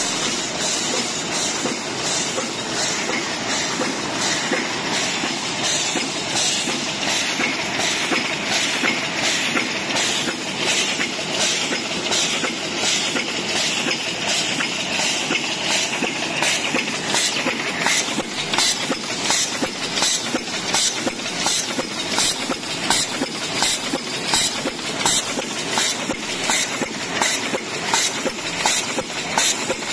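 DEBAO-1250CC high-speed paper cup machine running, a steady mechanical clatter with an even, rapid beat of about three strokes a second from its forming stations.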